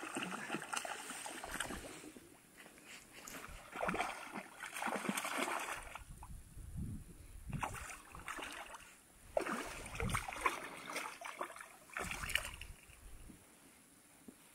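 Hooked trout splashing and thrashing at the water's surface as it is reeled into the shallows, in several separate bursts a few seconds apart.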